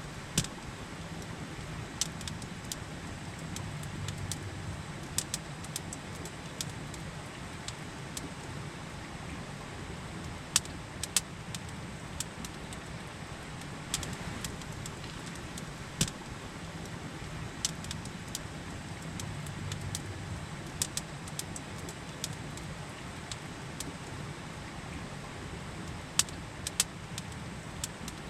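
Campfire crackling, with frequent sharp pops at irregular intervals, over the steady rush of a river.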